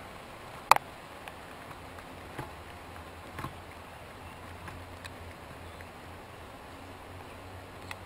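Chipmunks shucking corn cobs: scattered small clicks and cracks, the loudest a sharp crack just under a second in, over a faint steady hum.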